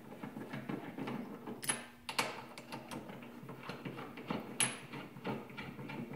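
Hands handling metal parts at a steel barrel vise: a run of small clicks and rustles, with two sharp metallic clicks about three seconds apart, each ringing briefly.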